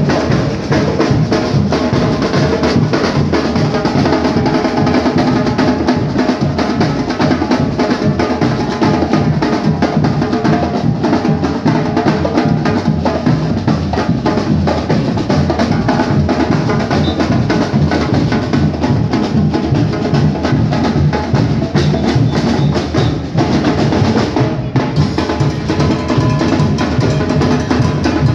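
Music driven by loud, dense drumming, with a steady run of drum strokes throughout.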